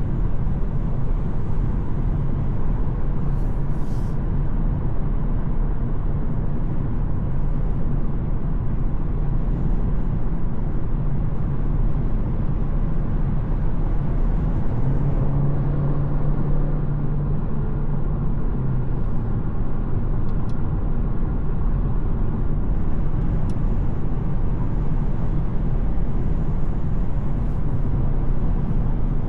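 Mercedes-Benz C 200 with a 1.5-litre petrol engine driving along: steady engine and tyre-on-road noise, the low engine hum growing stronger for a few seconds around the middle.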